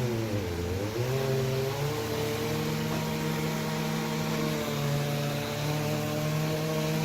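An engine running at a steady speed, its pitch dipping briefly about half a second in and then recovering.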